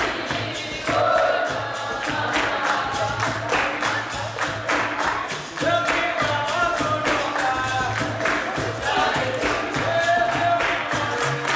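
A group of voices singing together over percussion that keeps a steady, even beat.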